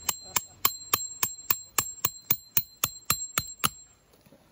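A hammer driving a metal tent peg into hard ground: a quick, even run of about fourteen sharp strikes, three or four a second, each with a bright metallic ring. The strikes stop about three and a half seconds in.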